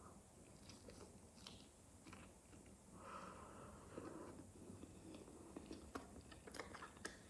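Faint close-up chewing of baked chicken meat, with soft wet mouth sounds and small lip smacks, and a run of sharper clicks near the end.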